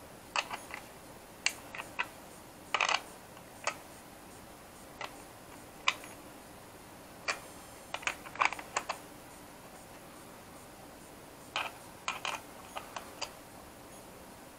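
Scattered sharp metal clicks and clatters in small clusters with pauses between: a small spanner knocking against a brass antenna connector and its nut and the plastic shell of a drone remote controller as the nut is fitted and tightened.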